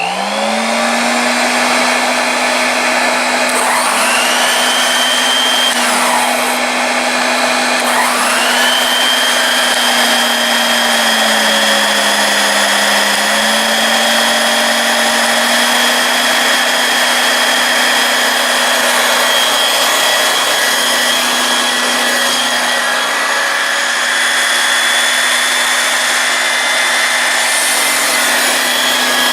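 Electrolux Epic 8000 canister vacuum cleaner switched on, its motor spinning up into a loud, steady run with a low hum and a high whine. In the first several seconds the whine falls away and climbs back twice before settling.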